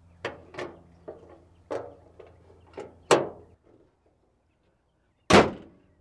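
Hood of a 1985 Dodge B150 van being closed: a run of clicks and clanks as the metal prop rod is unhooked and stowed, then the steel hood slammed shut with one loud bang near the end.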